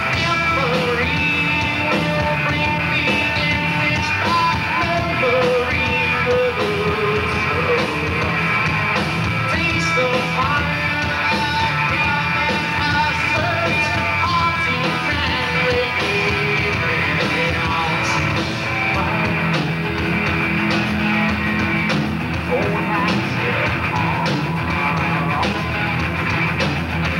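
Live rock band playing: electric guitars, bass guitar and drums, with a singer's voice over them.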